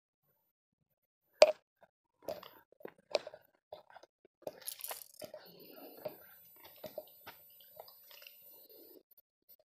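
A hiker's footsteps on a dirt forest trail: irregular steps, scuffs and knocks, the sharpest a single knock about one and a half seconds in, with a brief scrape about halfway.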